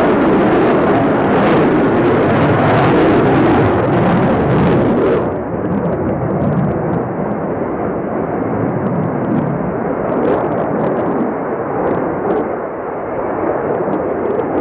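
Sukhoi Su-35 fighter jet engines: loud, steady jet noise. About five seconds in, the hiss on top cuts off abruptly and the sound turns duller and a little quieter.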